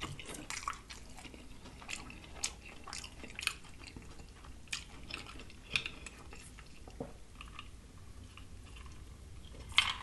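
Close-miked chewing of fried catfish: soft, sparse wet clicks and crackles, with a louder cluster of them near the end.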